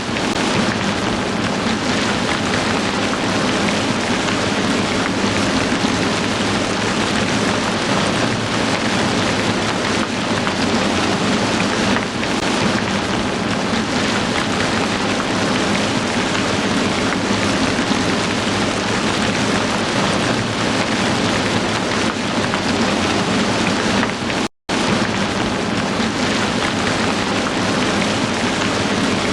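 Heavy rain falling steadily, an even hiss of drops with no let-up, broken only by a split-second gap of silence near the end.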